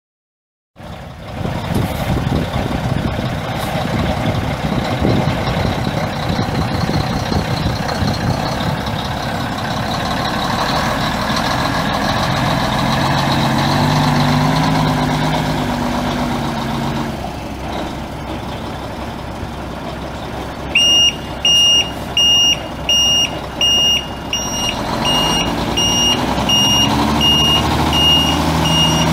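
1983 Mack RS686LS dump truck's six-cylinder turbo diesel running loudly, its engine note rising and falling about halfway through and climbing again near the end. About two-thirds of the way in, a reversing alarm starts beeping at a steady pitch, about one and a half beeps a second.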